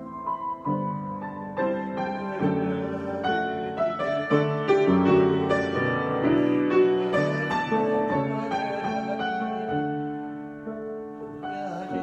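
Solo grand piano improvisation: chords and runs of notes that grow louder through the middle and ease off near the end.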